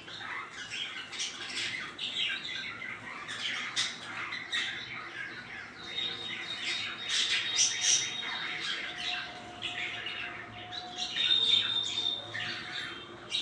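A group of Java sparrows calling busily: a dense run of short chirps and squawks, with a couple of higher held notes in the middle and near the end.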